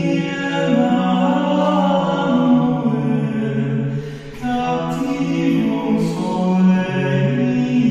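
Choral vocal music: several low voices chanting long held notes without words, moving slowly from pitch to pitch, with a short dip about four seconds in.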